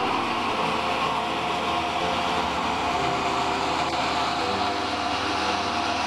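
Sawmill band saw machinery running steadily: a continuous mechanical drone with several steady hums underneath.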